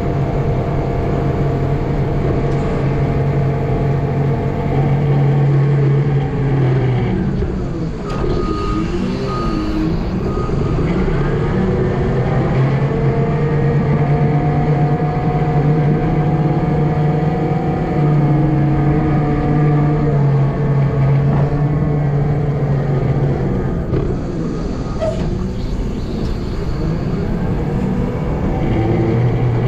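Heavy vehicle's engine running steadily, its pitch dropping and climbing again about seven to eleven seconds in, with a brief broken high beeping around eight seconds in.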